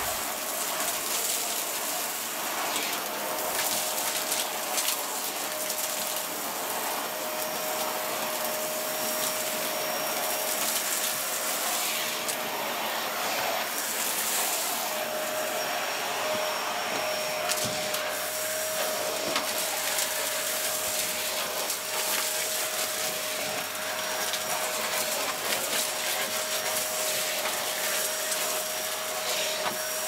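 Contempo G020-18 bagless cyclonic canister vacuum running on max: a steady motor whine with the clatter of small debris pieces being sucked up through the nozzle and hose. The whine briefly drops out about halfway through, then returns.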